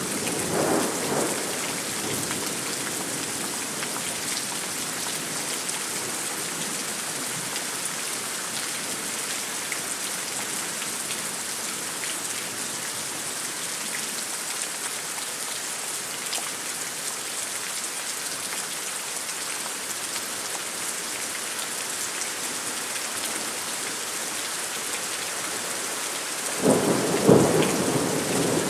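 Thunderstorm: rain falls steadily throughout. A rumble of thunder dies away in the first second or so, and a sudden loud clap of thunder breaks near the end.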